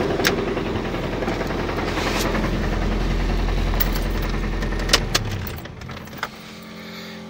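ZMZ-402 four-cylinder carburettor engine idling, now running after an air leak past the valves was cured with new valve stem seals, with a crackling that the owner hears somewhere. A sharp knock about five seconds in, after which the engine sounds quieter and muffled, as from inside the cabin.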